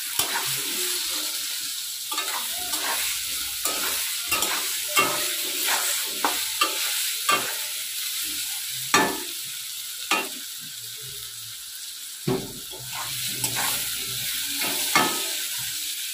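Diced potatoes sizzling in hot oil in a metal kadai, stirred with a flat steel spatula that scrapes and clicks against the pan at irregular moments over a steady frying hiss.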